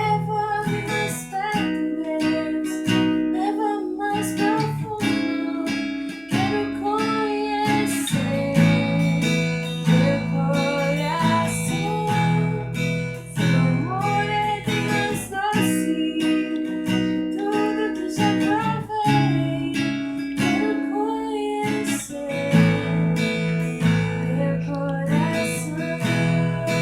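Acoustic guitar strummed in steady chords, with a woman's voice singing a slow melody over it.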